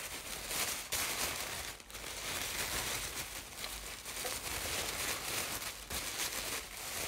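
White paper wrapping being handled and pulled open by hand, crinkling and rustling continuously, with brief pauses.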